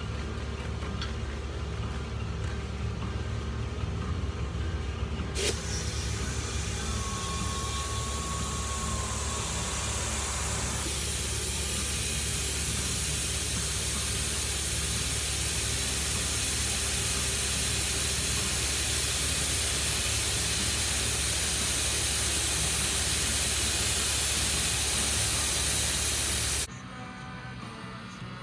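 Compressed air hissing through an air chuck into a small go-kart tyre's new valve stem as the tyre is filled. The hiss starts after a click about five seconds in, grows loud and steady from about eleven seconds, and cuts off suddenly near the end. A steady low hum runs underneath.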